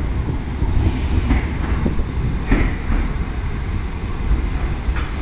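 R68 subway train approaching into the station: a steady rumble of wheels on the rails with scattered clacks and a few short high squeals.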